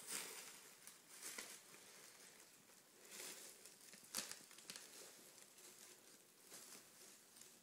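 Thin plastic shopping bags rustling and crinkling on and off as a cat pushes its head in among lettuce, with a sharper crackle about four seconds in.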